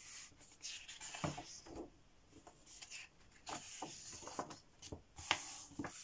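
Pages of a hardcover picture book being turned by hand: paper rustling and sliding, with a few soft taps as the book is handled, in a couple of separate bursts.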